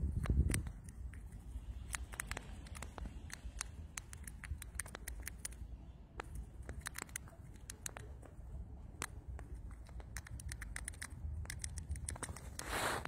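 Striped field mouse gnawing at a peanut shell held in the fingers: a run of small, irregular, crisp clicks and crunches. A low bump at the start and a brief louder rustle near the end.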